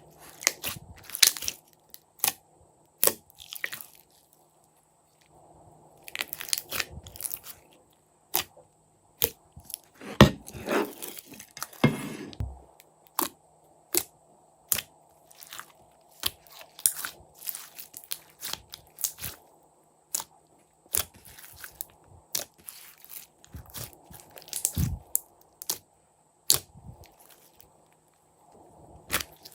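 Slime being mixed and handled by hand, making a string of sharp crackling clicks and pops with a longer noisy squish about ten seconds in.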